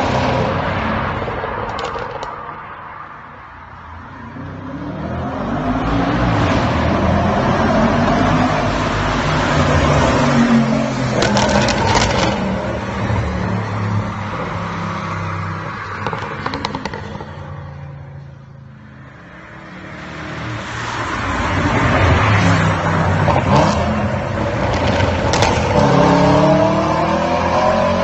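Audi S5 coupe's 4.2 V8 with a Capristo exhaust driving past several times, loud, with the engine note rising and falling as it revs and nears, then fading between passes. Sharp exhaust crackles and pops cut through on the passes.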